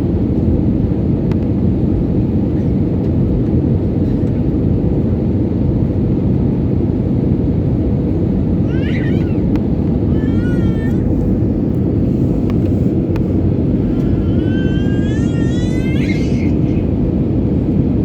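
Airliner cabin noise: the steady, even rumble of the engines and airflow heard from a passenger seat. A few brief high-pitched rising cries come over it partway through.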